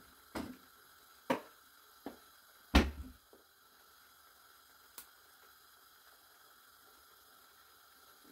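A few short knocks and clicks as sprigs of rosemary are laid over duck pieces in a frying pan, the loudest knock about three seconds in and a last faint click about five seconds in.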